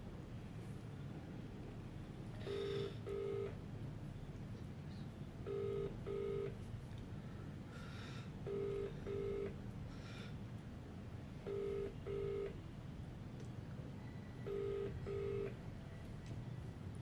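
Telephone ringback tone from a mobile phone: a low double ring, two short beeps close together, repeating five times about every three seconds. No one answers.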